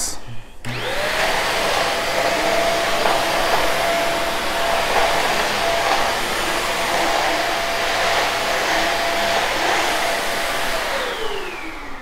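An iwoly V600 corded stick vacuum cleaner's 500 W motor is switched on about half a second in and its whine rises quickly to speed. It then runs steadily, a high whine over a rushing airflow noise, while vacuuming. Near the end it is switched off and the whine falls away as the motor winds down.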